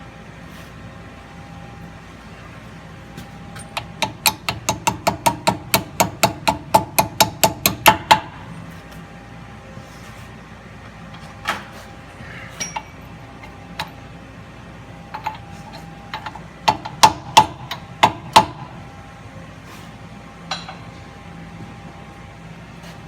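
Rapid metal-on-metal taps on the ball joint's parts as the race and pin go back into the housing: a run of about five sharp taps a second for some four seconds, growing louder, then a few single taps and a short burst of loud ones later on.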